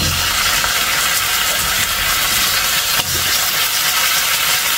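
Raw chicken legs sizzling in hot oil and onion masala in a nonstick wok. The sizzle starts suddenly as the pieces go into the pan, then holds steady.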